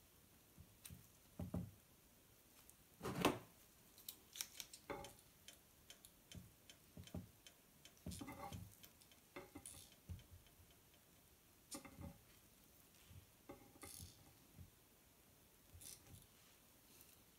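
Quiet, scattered clicks, taps and rustles of gloved hands shaping a pancake cup and kitchen tongs handling it on a serving board, with one louder knock about three seconds in.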